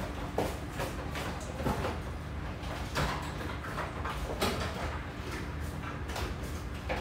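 Dishes and utensils knocking and clinking in a kitchen sink during hand washing, in irregular short knocks over a steady low hum.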